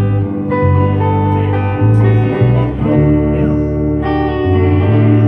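Music: the instrumental intro of a song, guitar over a bass line whose notes change about once a second.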